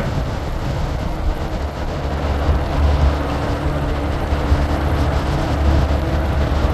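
Steady low rumble of a moving vehicle heard from inside, with a faint steady hum joining about three seconds in.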